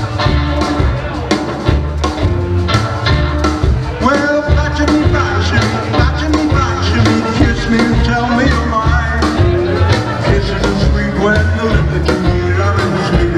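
Live rockabilly band playing a rock and roll number, with electric guitar, upright bass and a singer, at a steady loud level.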